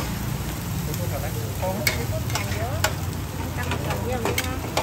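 Metal spatulas scraping and clacking against a flat griddle as crispy oyster-and-taro omelette is chopped and tossed, over a steady sizzle of frying. The sharp clacks come at irregular moments, a few of them standing out.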